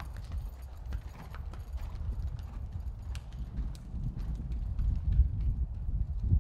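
Horse's hoofbeats, a continuous run of dull low thuds, with a few faint sharp clicks over them.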